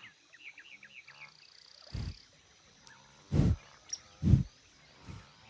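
Reindeer snuffling at a close microphone: four short, heavy puffs of breath, the middle two loudest. Small birds chirp faintly during the first second.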